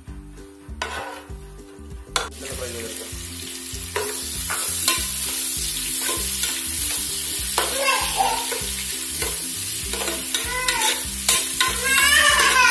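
Sliced onions frying in hot coconut oil in a non-stick pot: a steady sizzle that starts about two seconds in, with a metal spoon stirring and scraping through them, loudest near the end.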